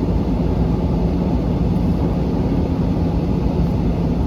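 The excavator's Cummins diesel engine running steadily, heard from inside the cab.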